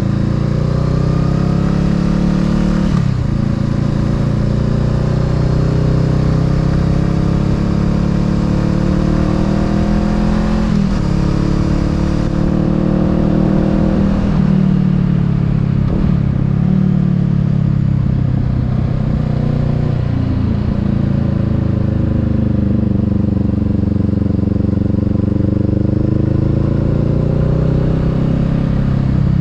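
Honda Rebel 500's parallel-twin engine and exhaust under way, its pitch climbing and then dropping sharply at each gear change, several times in the first half. Later the revs sag and build again slowly. A steady hiss over the engine drops away about twelve seconds in.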